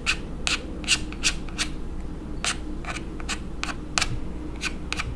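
Small eyebrow razor scraped in short, quick strokes over a plastic doll's brow, about three crisp scrapes a second, unevenly spaced.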